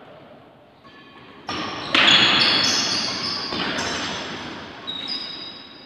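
Doubles badminton rally in a large echoing hall: shoes squeaking on the court and rackets hitting the shuttlecock. It starts quietly and turns suddenly loud about a second and a half in, with a string of high squeaks, then dies away toward the end.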